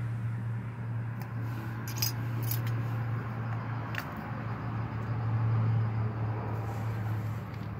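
A few light metal clicks and clinks from small brake pad hardware clips being handled, over a steady low hum.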